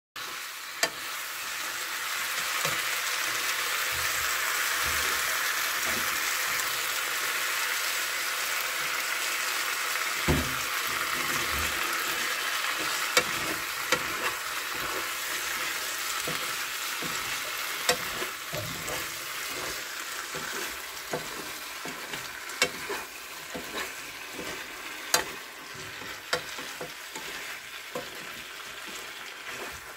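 Blood sausage, cabbage and carrot in red sauce sizzling in a nonstick frying pan as they are stir-fried: a steady frying hiss with scattered sharp clicks and scrapes of the utensil against the pan. The sizzle eases off toward the end.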